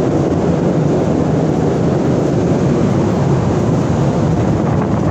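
Steady, loud rushing noise of the livestock ship's forced-air ventilation on the cattle deck, an even, deep drone that does not change.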